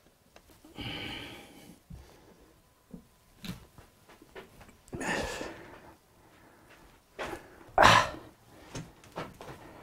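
A large sheet of paper rustling in several short bursts as it is pressed and smoothed by hand, with soft taps between them; the loudest, sharpest rustle comes about eight seconds in.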